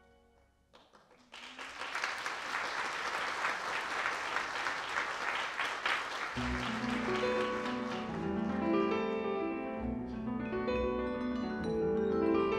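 After a near-silent first second, an audience applauds; around six seconds in, new music with keyboard notes over a bass line begins and the applause dies away.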